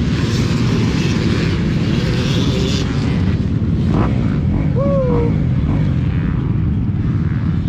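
KTM 300 two-stroke dirt bike engine running while riding, a steady loud rumble mixed with wind noise on the microphone.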